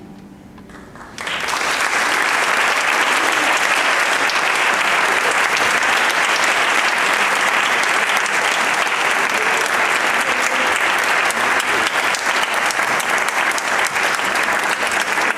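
The last chord of a grand piano fades out, then about a second in an audience starts applauding and keeps clapping steadily.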